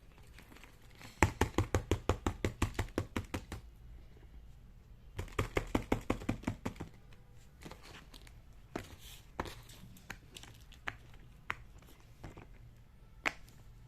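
Fidget toy being clicked: two quick runs of sharp clicks, about seven a second, then a few scattered single clicks.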